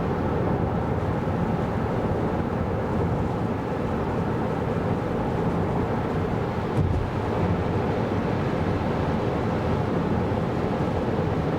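Steady low road and tyre noise from a Kia Carnival Hybrid minivan driving in snow, with a single brief thump about seven seconds in.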